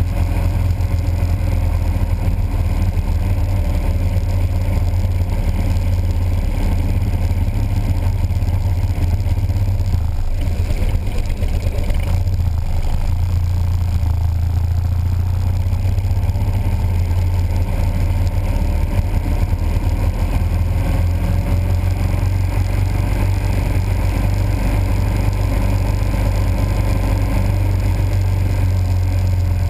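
Motorcycles riding in a group at steady cruising speed, their engines a steady low rumble.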